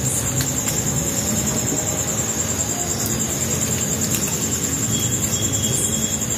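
Crickets trilling steadily and high over a continuous low rumbling noise, which comes with a lit wood-fired clay stove.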